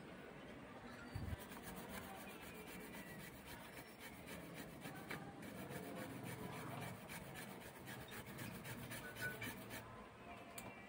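Toothbrush bristles scrubbing the back of a graphics card's circuit board in fast repeated strokes, stopping shortly before the end. A soft low knock about a second in.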